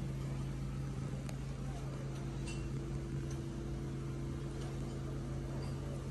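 Steady low mechanical hum with two constant tones, and a faint click about a second in.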